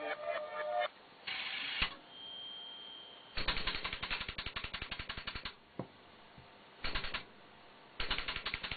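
Eola RM322SA car radio's output crackling in bursts of rapid, evenly spaced clicks, three bursts in all, with a brief steady high whistle about two seconds in.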